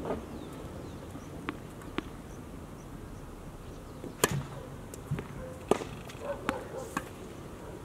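Tennis ball bounced twice on a hard court before the serve, then a sharp racket strike on the serve about four seconds in, the loudest sound. It is followed by several more bounces and racket hits as the ball is returned.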